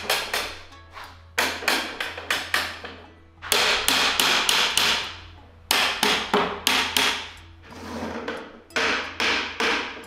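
Hammer and wooden-mallet blows on the cedar-stave shell of an oke-daiko barrel drum bound with iron hoops, as the hoops are driven down to tighten the staves. The blows come in quick runs of about three to four a second with short pauses between, some leaving a brief ring.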